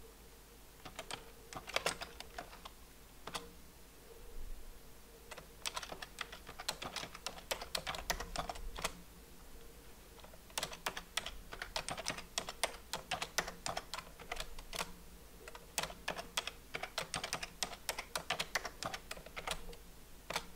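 Typing on a computer keyboard: rapid keystroke clicks in several bursts with short pauses between them, as a command and then passwords are entered at a terminal.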